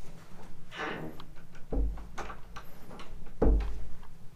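Two dull, heavy thumps about a second and a half apart, the second the louder, with light rustling and small clicks between them.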